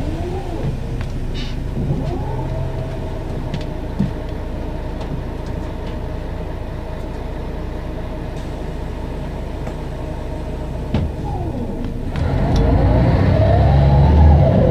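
Mercedes-Benz O 550 Integro bus running, with the steady whine of its five-speed ZF Ecomat automatic gearbox over the engine hum. About twelve seconds in the engine grows louder and the whines rise and fall as the bus accelerates.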